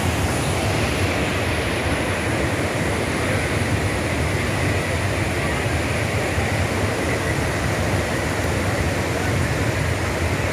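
A large waterfall in full flow: a steady, loud rush of falling water.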